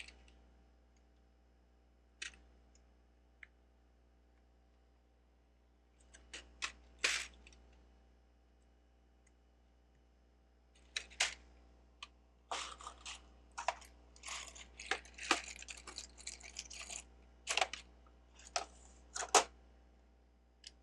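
Small plastic Lego bricks being handled: a few scattered clicks at first, then a busier stretch of clicking and rattling from about halfway through, as pieces are picked out and pressed together.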